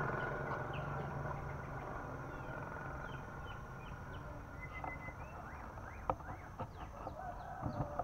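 A motor engine hum fades away over the first few seconds, while small birds give short high chirps. In the second half come a few sharp clicks and brief calls.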